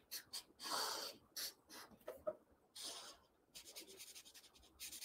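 Felt-tip marker drawing on a large easel pad, faint and scratchy: a few separate strokes, then quick back-and-forth strokes from about three and a half seconds in as the mouth is filled in.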